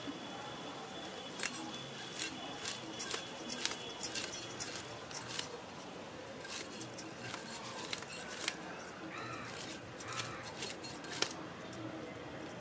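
Scales being scraped off a large fish against the fixed curved blade of a boti: a run of short, sharp scraping clicks at an irregular pace.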